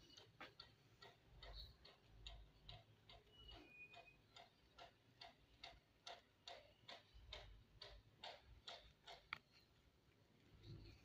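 Faint, even ticking, about three ticks a second, stopping shortly before the end.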